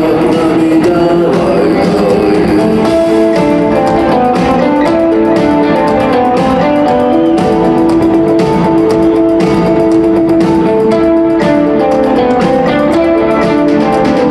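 Guitar-led rock music: a guitar plays a repeating melody of held notes over a full band.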